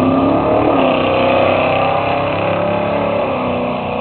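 Two drag-racing cars accelerating hard down the quarter-mile side by side, one a Mustang coupe with a 302 small-block Ford V8, engines at full throttle with the pitch rising and dropping. The sound slowly fades as the cars pull away.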